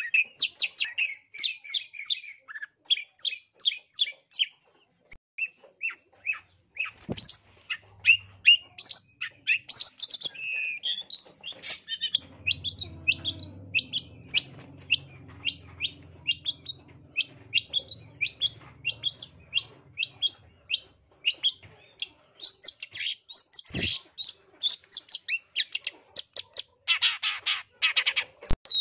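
Long-tailed shrike (cendet) singing a fast, unbroken run of short, sharp chattering notes, several a second. This is the excited, aggressive song that keepers call narung. A harsh rasping burst comes near the end, with two brief knocks and a faint low drone in between.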